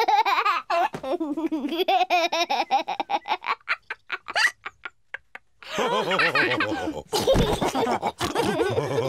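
Cartoon voices laughing: a small child's giggling, then a short pause, then several voices laughing together.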